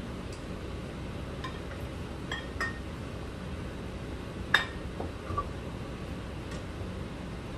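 Metal spatula clinking against a cooking pot and a ceramic plate while a stew is stirred: several light clinks, the loudest about four and a half seconds in, over a steady low background hum.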